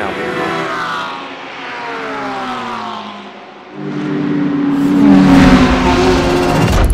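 Race cars passing at speed on the circuit. One car's engine note falls in pitch and fades away over the first three seconds or so. About four seconds in, a second, louder one comes up.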